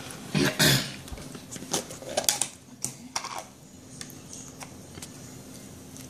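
A short burst of voice about half a second in, then a few sharp clicks and crinkles of plastic food packaging being handled, scattered over the next two seconds before it goes quiet.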